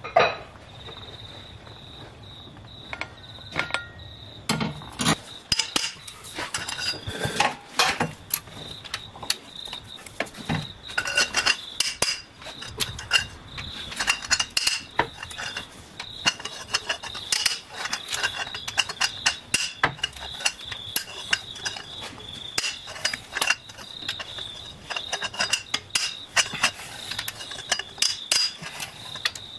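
Ratchet wrench clicking in quick runs of back-and-forth strokes, starting about five seconds in, as it backs out the cylinder head bolts. A steady high whine runs underneath.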